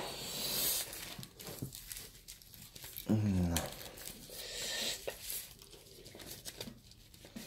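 A clear plastic bag crinkling and rustling as it is opened and handled. A short, low vocal sound with a falling pitch comes about three seconds in.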